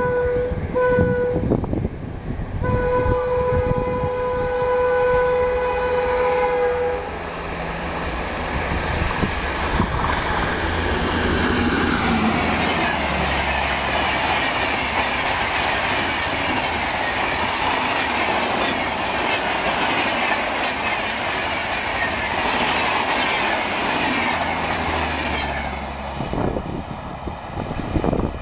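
WAP-7 electric locomotive's horn blowing: a short blast, a brief break, then a held blast that stops about seven seconds in. The train then rushes past at high speed, coaches clattering over the rails for about twenty seconds before the sound drops away near the end.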